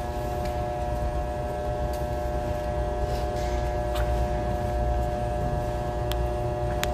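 Steady electrical hum with a buzz of several even tones over a low rumble, holding unchanged, with a few faint clicks.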